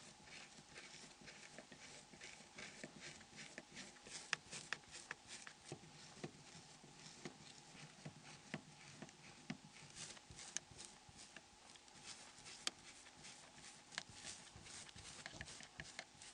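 Faint, irregular small clicks and ticks of a Torx screwdriver undoing the tiny screws of a Nokia N73 phone, over a low steady hiss.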